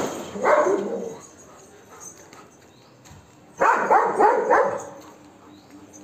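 Golden retriever barking aggressively to chase monkeys away: a couple of barks at the start, then a quick run of several barks about three and a half seconds in.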